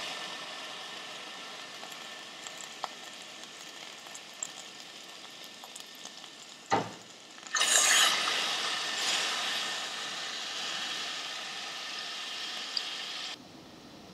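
Food sizzling in a hot pan: the sizzle fades, then after a short knock it jumps up loud about halfway through and slowly dies down again, cutting off suddenly near the end.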